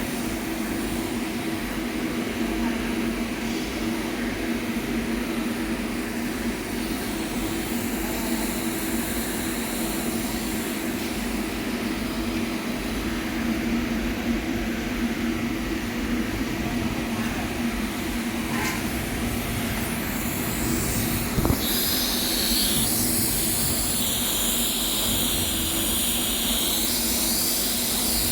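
TIG welding on stainless steel during a filling pass: a steady hiss and hum from the arc and welding set. About three-quarters of the way in, a brief click is followed by a brighter, higher hiss.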